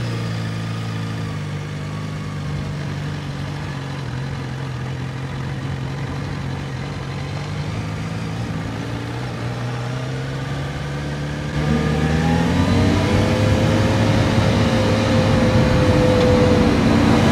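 Motorcycle engine running at a steady low speed. About twelve seconds in it gets louder and climbs in pitch as the bike accelerates, then holds a steady note.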